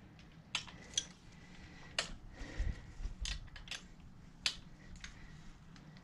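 A handful of short, sharp metal clicks and clinks at uneven intervals from a socket and beam-style torque wrench working the heel shifter's mounting bolt as it is tightened to about 10 foot-pounds.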